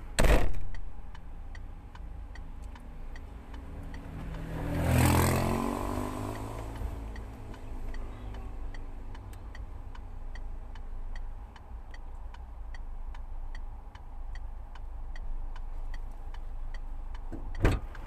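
Inside a parked car, the indicator flasher ticks steadily, about two ticks a second. A car door shuts with a thump at the start and clunks again near the end. About five seconds in, a vehicle passes outside, swelling and fading.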